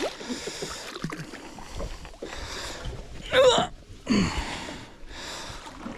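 A man's brief wordless yelp about three and a half seconds in, followed by a falling grunt, over repeated stretches of hiss.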